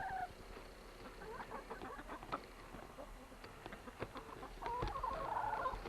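Domestic hens clucking softly among themselves, with short scattered pecking and scratching clicks and a run of low clucks near the end.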